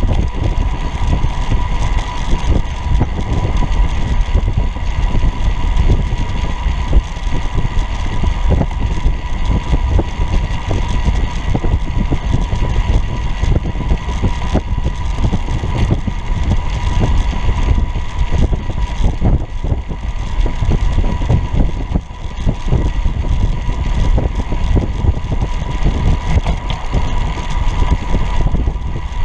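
Wind buffeting and tyre and road rumble picked up by a camera mounted on a recumbent low-racer bicycle at speed on a paved path, loud and continuous with a steady thin whine, easing briefly about two thirds of the way through.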